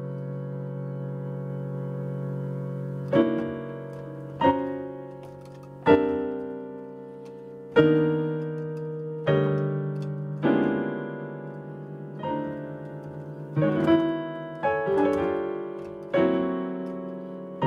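Casio digital piano played slowly in sustained chords: each chord is struck and left to fade, a new one coming every second or two, with a few quicker chords near the end.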